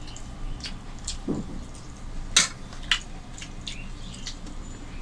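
Eating by hand: soft chewing and lip-smacking clicks as rice and fish curry are eaten with the fingers, scattered irregularly, with one sharper click about two and a half seconds in.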